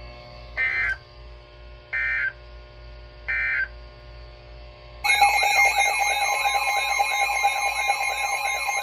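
Emergency Alert System broadcast audio: three short, identical digital data bursts about a second and a half apart, the end-of-message code that closes an alert. About five seconds in, a loud warbling electronic alert tone starts and keeps going, the alarm that opens the next warning.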